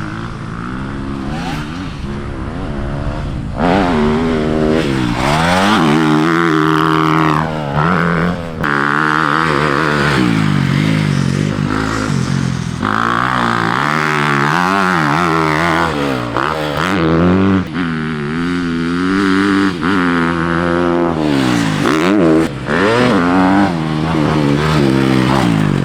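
2023 Honda CRF250 dirt bike's single-cylinder four-stroke engine revving hard, its pitch climbing and dropping again and again with throttle and gear changes. Quieter for the first few seconds, then loud from about four seconds in.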